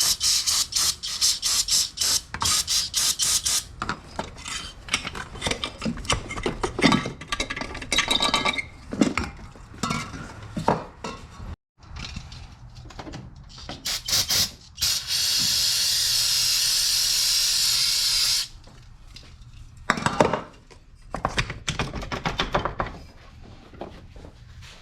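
Hand scraping of rust and coolant crud from the engine's thermostat-housing mounting surface: rapid back-and-forth strokes with scattered clicks and knocks. About halfway through there is a steady hiss lasting about three seconds.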